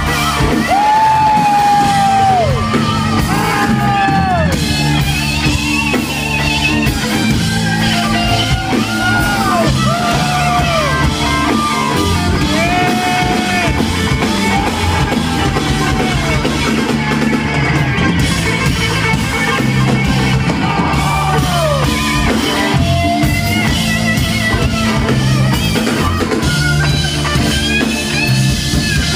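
Live rock band recorded from the crowd: an electric guitar solo of long, bent and sliding notes over bass and drums.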